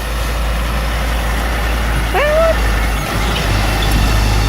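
Heavy truck traffic on a road: steady engine and tyre noise with a low wind rumble on the microphone. A short voice-like sound rises briefly about two seconds in; no horn sounds.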